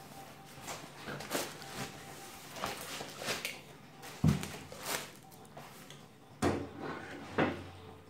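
Foam wrap and plastic packaging rustling and scraping as a shock absorber is handled in a cardboard box, with three dull knocks of the parts against the box, the loudest about four seconds in.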